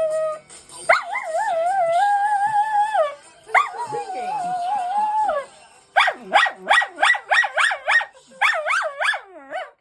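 A dog howling along to a phone ringtone: three long howls with a wavering pitch, then from about six seconds in a quick run of short yipping howls, about three to four a second.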